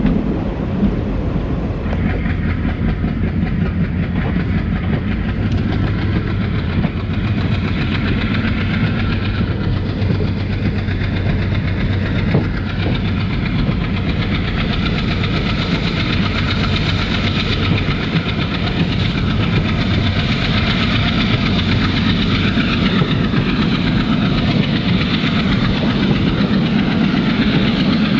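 Diesel-hauled passenger train on the move, heard from on board: the WDG3A locomotive's ALCO V16 diesel engine runs steadily under the rumble and clatter of the coaches' wheels on the track. The rushing noise grows louder from about halfway through.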